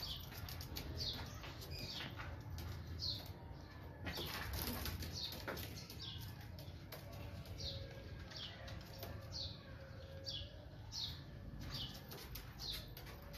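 Pigeons' wings flapping and clattering in a loft, heaviest about four to five seconds in. A high, short chirp that falls in pitch repeats about once a second.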